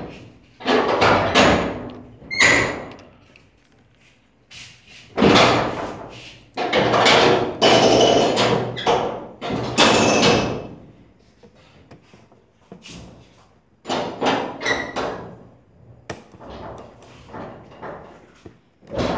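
Scraping, rubbing and knocking of plastic phone parts and a screwdriver being handled while a Tecno F1 phone is taken apart, in irregular bursts of up to about a second, with a brief squeak a couple of times.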